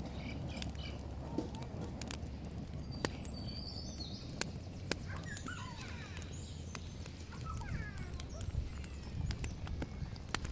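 Open wood fire burning, with a steady low rush and scattered sharp crackles and pops. Birds chirp now and then in the background.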